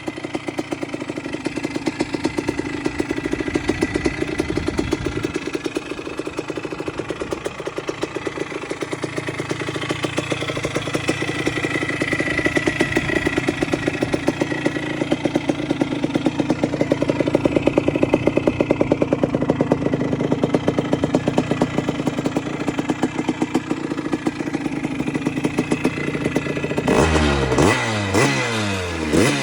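1979 Honda CR125's single-cylinder two-stroke engine running at a steady idle, then revved in several quick throttle blips near the end.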